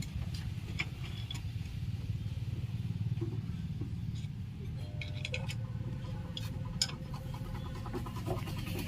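An engine running steadily with a low rumble, with scattered light metallic clicks and taps over it.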